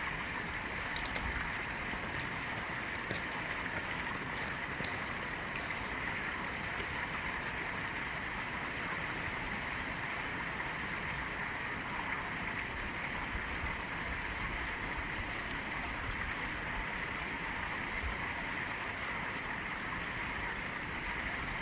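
Stream water flowing under ice, a steady rushing with a few faint ticks in the first few seconds.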